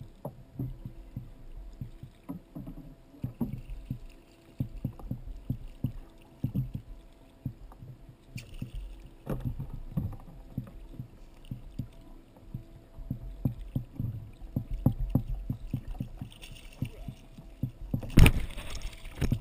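Water slapping and knocking against a kayak hull, with many small knocks and splashes, as a yellowfin tuna is worked alongside and gaffed. Near the end comes one loud thud and splash as the tuna is hauled up onto the kayak.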